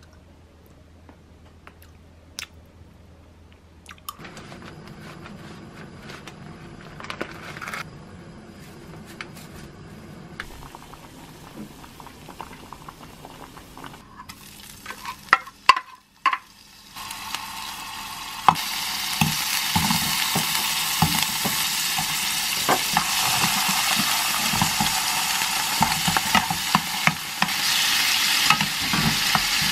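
Quiet at first, then light kitchen handling and a few sharp knocks of pans around halfway. Shrimp then fry in oil in a frying pan, a loud steady sizzle through the second half, with the taps and scrapes of a spoon stirring them.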